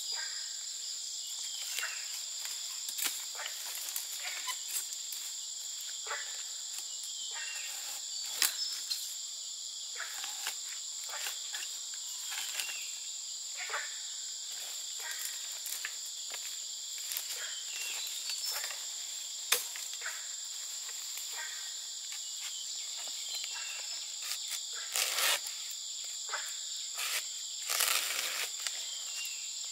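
Steady, high-pitched insect chorus. Frequent short clicks and rustles sound over it, with longer rustling stretches about 25 seconds in and again near the end.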